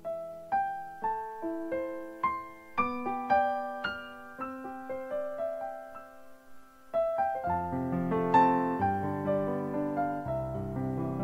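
Background piano music: a slow melody of single struck notes, filling out with fuller, lower chords a little past halfway.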